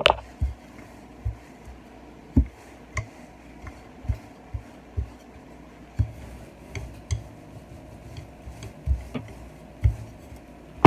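Wooden rolling pin being rolled back and forth over sugar-coated puff pastry on a silicone mat, giving irregular soft thumps and light clicks as it is pressed and turned. A much louder knock comes at the very end.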